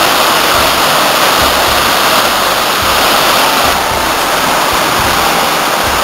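Waterfall close by: water pouring over rock ledges into a pool, a loud, steady rush.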